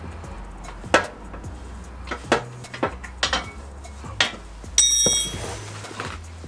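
Metal tools and car parts knocking and clinking during repair work: a handful of sharp knocks spaced about half a second to a second apart, then a louder ringing metallic clang about five seconds in.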